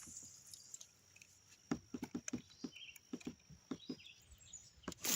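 A run of light, irregular clicks and taps from handling gear in a kayak, over a faint steady high-pitched tone.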